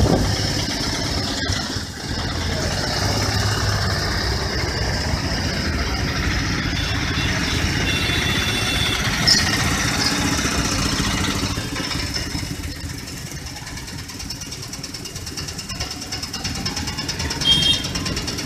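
An engine running steadily amid general background noise, with a brief louder sound near the end.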